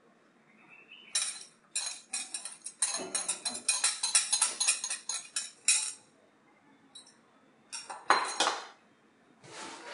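Rapid, irregular clinking of a metal utensil against a ceramic bowl as beaten egg is scraped and poured out into a frying pan. The clinks stop about six seconds in, and a short burst of clinks comes again near the end.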